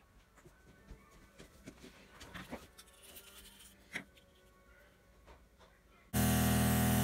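Small taps and clinks of a paintbrush and a paint cup being handled on a workbench. About six seconds in, an airbrush compressor switches on abruptly: a loud, steady motor hum with a hiss of air, ready to spray watered-down white acrylic paint.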